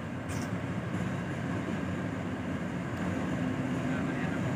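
Diesel locomotive hauling a passenger train slowly into the station, its engine running with a steady low drone that grows louder as it approaches.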